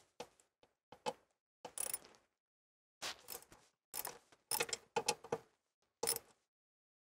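Ratchet with a 10 mm socket backing out the bolts that hold the PCM to the firewall: short runs of sharp ratchet clicks with pauses between, stopping about six seconds in.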